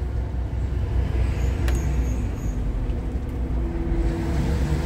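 FAW JH6 tractor unit's diesel engine running steadily as the truck drives on, heard from inside the cab as a low drone. There is one sharp click about a second and a half in.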